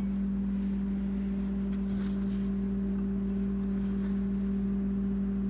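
A steady electrical hum: one low, level tone with a fainter tone above it, unchanging throughout.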